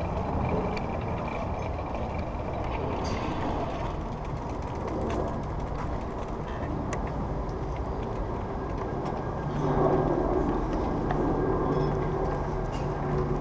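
Bicycle riding, heard from a camera mounted on the bike: steady wind and road rush on the microphone, with scattered light ticks and rattles from the bike. A steady low hum joins about two-thirds of the way through.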